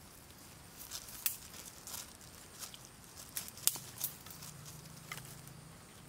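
Dry twigs and firewood snapping and crackling in a dozen or so irregular sharp cracks, the loudest about a second in and near the middle.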